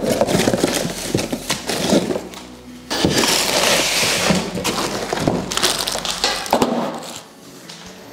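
Unboxing of a MIG welder: cardboard flaps scraping, and foam packing and plastic wrap crackling and rustling as the machine is pulled out of its box. The handling noise dies down near the end.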